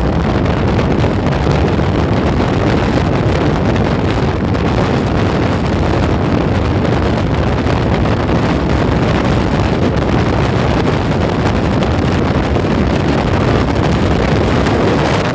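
Steady, loud wind rush over the microphone of a motorcycle riding at speed, blended with the running noise of the bike.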